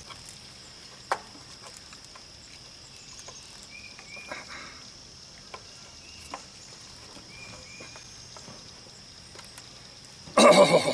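Steady chirring of insects with scattered faint clicks from handling small plastic adapters, and near the end a loud horse whinny.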